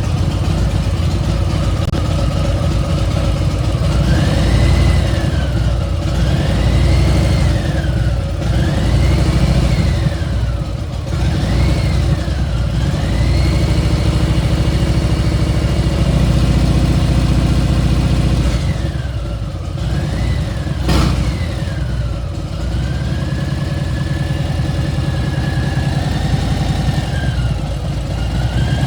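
Harley-Davidson Milwaukee-Eight V-twin engine being revved up and down repeatedly, with an excessive high-pitched whine that climbs and falls in pitch with each blip of the throttle. A single sharp click sounds about two-thirds of the way through.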